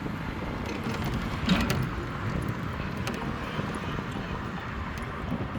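Steady rush of wind and vehicle running noise while riding, with a few faint clicks about a second and a half in and again around three seconds in.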